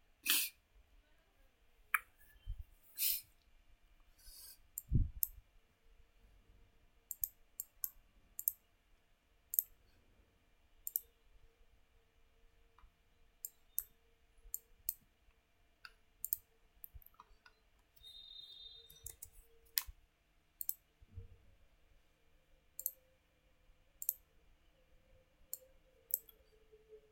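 Computer mouse buttons clicking at an irregular pace, with a few dull low thumps among the clicks.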